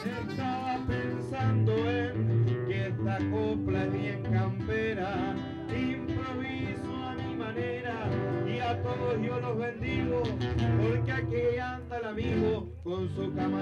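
Country-style folk music led by a strummed guitar, with singing, and a short break about twelve seconds in.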